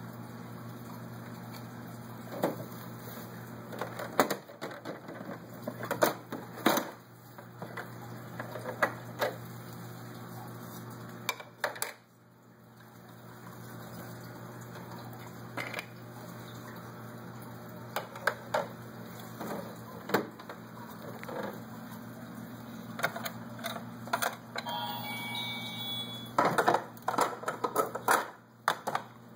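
Plastic toy kitchen pieces being handled, with scattered clicks, taps and knocks of hard plastic over a steady low hum. About 25 seconds in, a short run of electronic beeping tones.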